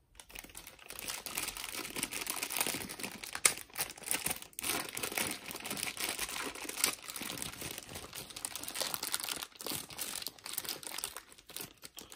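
Clear plastic packaging bag crinkling and rustling as it is handled, in irregular crackles with a sharper one about three and a half seconds in.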